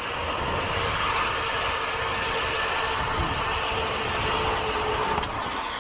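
Zipline trolley pulleys running along the steel cable, with wind rushing past: a steady whirring hum over a rushing noise, with a short click near the end.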